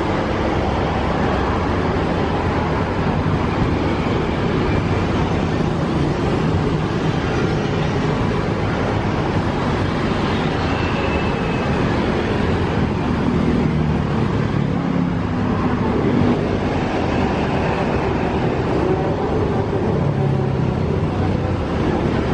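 Diesel engine of a Mercedes-Benz coach idling steadily at the curb, a continuous low rumble, with road traffic running past.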